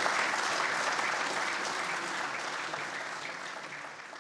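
Audience applauding: dense clapping from a seated crowd that slowly dies down.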